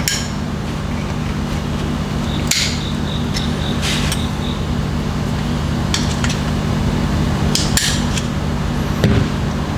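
Scattered sharp metallic clicks and taps of a tool working at the snap ring inside a motorcycle fork tube, over a steady low hum.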